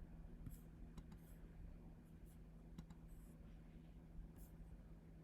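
Near silence: a faint steady electrical hum with a few faint, scattered clicks.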